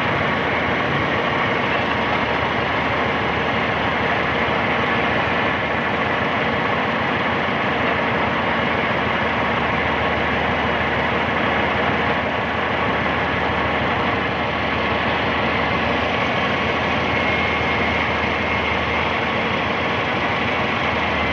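Excavator's diesel engine running steadily, with a faint high whine near the end.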